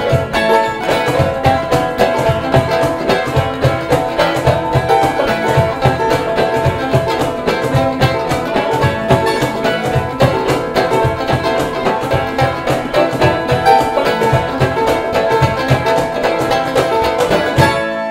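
Live old-time string-band music: banjo and guitar playing a fast fiddle tune over a steady cajon beat.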